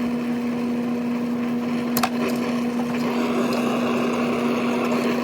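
Brazing torch flame hissing steadily as it heats a copper line and Schrader fitting red-hot on a refrigerator compressor, with a steady low hum behind it and a single sharp click about two seconds in.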